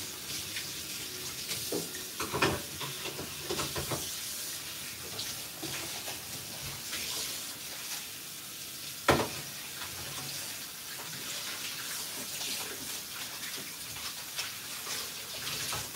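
Kitchen tap running into a stainless steel sink while things are rinsed and handled, with scattered light clinks and one sharp knock about nine seconds in.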